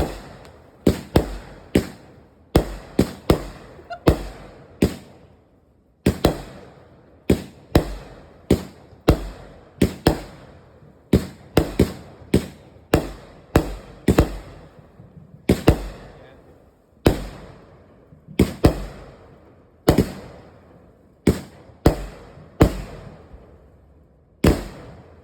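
Consumer fireworks going off: a long, irregular string of sharp bangs, often one or two a second, each trailing off in a short echo, with brief lulls about six and sixteen seconds in.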